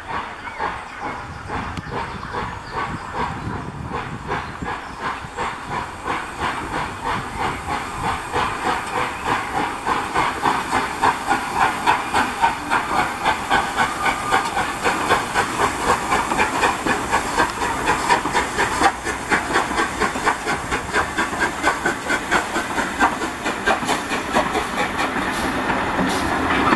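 LMS Royal Scot class 4-6-0 steam locomotive 46100 working a passenger train, its three-cylinder exhaust beating in a quick, steady rhythm with a hiss of steam. It grows louder from about ten seconds in as it draws near and passes, with the coaches' wheels clattering on the rail joints.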